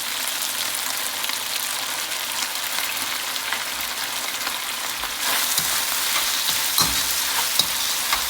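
Chicken and leek stir-frying in hot oil in a pan, a steady sizzle. About five seconds in the sizzle gets louder, and a few sharp clicks follow.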